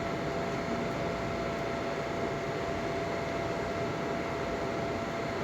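Steady background noise: an even hiss with a faint constant tone under it and no distinct events.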